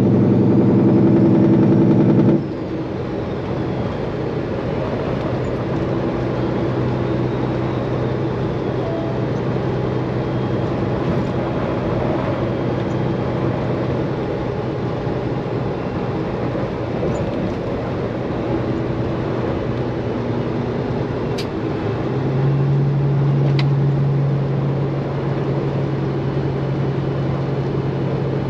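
Straight-piped Peterbilt 389 semi-truck's diesel engine running on the road, a steady drone. It starts with a louder, fuller note that drops off abruptly after about two seconds, and swells again briefly about three-quarters of the way through.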